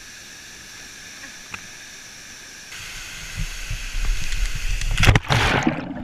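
Steady rush of a waterfall pouring into a pool. From about halfway, water sloshes against the camera more and more loudly, with a splash about five seconds in as it goes under, after which the sound turns muffled.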